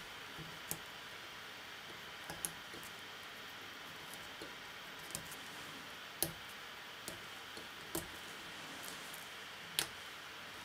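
A fine-toothed comb worked through the poly yarn fibres of a fly held in the vise, giving a handful of faint, scattered clicks over a steady hiss.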